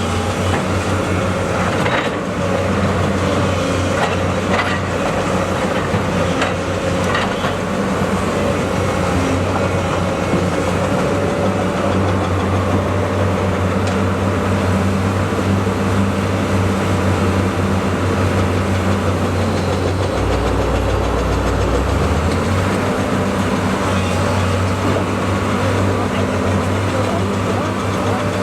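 Diesel engine of a SANY SY240C-9 crawler excavator running steadily under working load, with a few sharp knocks in the first several seconds and the engine note shifting about twenty seconds in.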